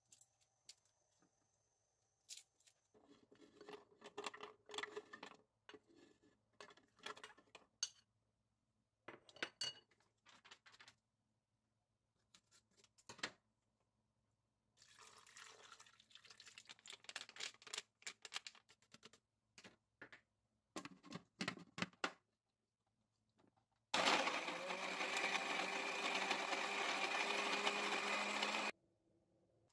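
A countertop blender's motor runs steadily for about five seconds near the end, grinding garlic cloves and other chunks into a thick puree, then stops abruptly as the dial is turned off. Before that come scattered knocks and rustles as ingredients go into the plastic jar.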